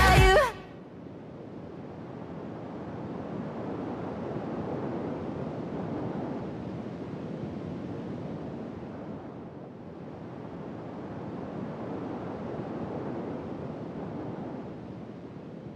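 Sped-up pop song with singing cuts off about half a second in. A soft, even rushing noise follows, slowly swelling and ebbing twice, like surf.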